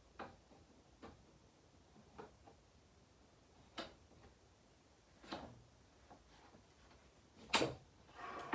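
Scattered light clicks and knocks from fitting a doll's support rod onto an animated Halloween prop's frame, about six in all, with the loudest knock near the end.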